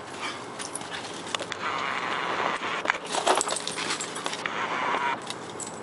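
Two German shorthaired pointers scuffling at play in the dirt: paws scrabbling, with metallic jingling from their collars and irregular clicks. The scuffle is loudest about three seconds in.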